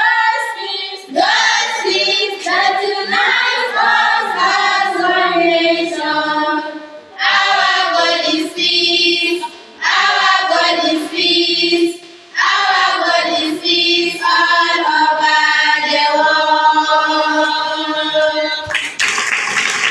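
A group of schoolgirls singing together in unison, in phrases of held notes with short breaks between them. A brief rush of noise comes shortly before the end.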